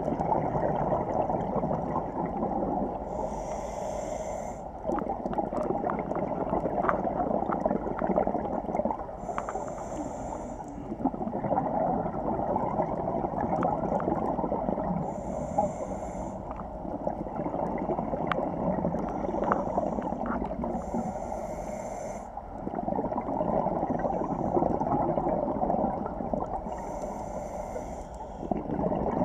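Scuba diver breathing through a regulator underwater: a short hiss on each inhale, about every five to six seconds, and a rough, bubbling rush of exhaled air between the breaths.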